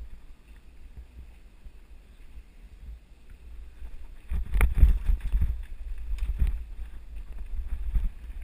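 Mountain bike riding fast over a rough dirt trail: a low rumble with many knocks and rattles from the bumps, mixed with wind buffeting the microphone. It gets much louder about four seconds in as the bike picks up speed downhill.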